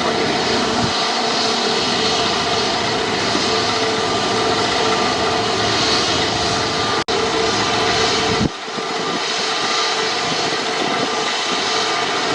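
Jet airliner engines running loudly and steadily, a dense rushing noise with a steady tone through it. The sound drops out for an instant about seven seconds in and changes abruptly about a second and a half later.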